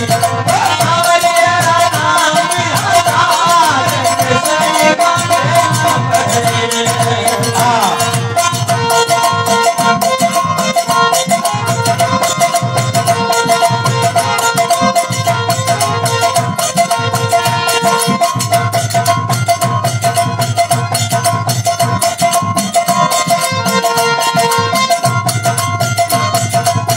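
Thari devotional folk music: a harmonium holds steady chords over a fast rattling percussion rhythm and a low drum beat. A male voice sings a winding line in the first few seconds and again around eight seconds in.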